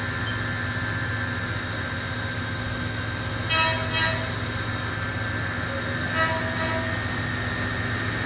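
CNC machining centre milling a billet runner with a 16 mm end mill on a contour pass under flood coolant: a steady spindle whine over coolant spray. The cut gets briefly louder and more tonal twice, at about three and a half and six seconds in.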